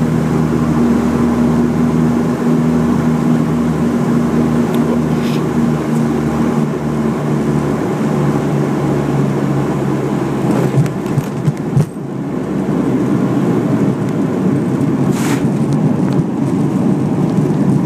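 A small high-wing airplane's engines drone steadily in the cabin on a low approach, their hum fading about ten seconds in. A few sharp knocks follow as the wheels touch down on the runway, then a louder, even rush of the landing rollout.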